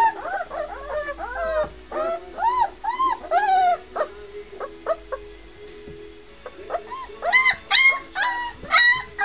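White Swiss shepherd puppies, about three weeks old, whining and squealing in quick short cries that rise and fall in pitch. The cries come thick at first, thin out in the middle with a few small taps, and pick up again near the end.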